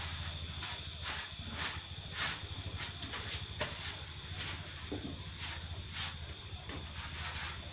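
Steady high-pitched chirring of crickets over a low steady hum, with scattered faint clicks and knocks.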